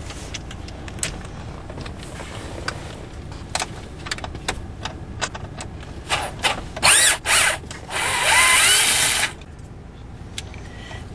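Power drill backing out trim screws: a few light clicks and knocks of handling, then short spins about seven seconds in and a longer run of about a second, the motor's pitch rising and falling as it drives.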